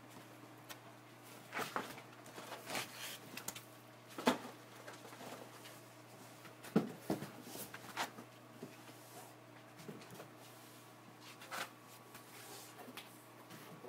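White foam packing blocks being pulled out of a cardboard shipping box: scattered knocks, scrapes and rubs of foam against cardboard, over a faint steady hum.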